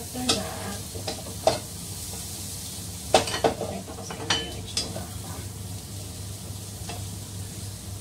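Food sizzling in hot oil in a frying pan as it is sautéed and stirred with a wooden spatula. The spatula clacks and scrapes against the pan several times, loudest about three seconds in.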